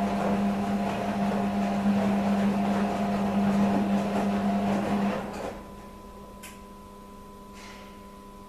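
Beko washing machine running with a steady low electric hum and a water-like rush, which stops abruptly about five seconds in. A faint hum and two small clicks follow.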